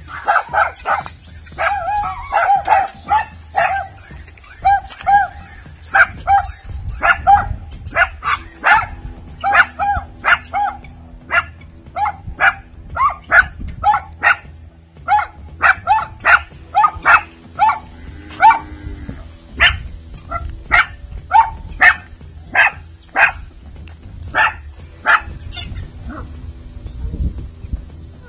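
Small pinscher dog barking angrily in rapid, sharp, high-pitched barks, about one to two a second. The barks come thickest at first, then thin out and stop near the end.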